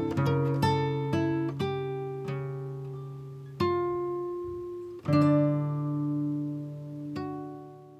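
Background music of a plucked guitar: single notes and chords ringing and decaying, with fresh chords struck about halfway through, fading out at the end.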